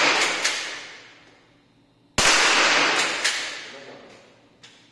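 A rifle fires once in a small indoor range, about two seconds in, with a long echoing decay. The echo of a shot fired just before is still dying away at the start. Sharp mechanical clicks follow each shot, as the action is worked to chamber the next round.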